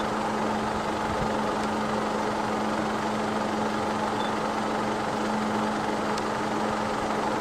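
Vehicle engine idling steadily: an even hum with one constant low tone.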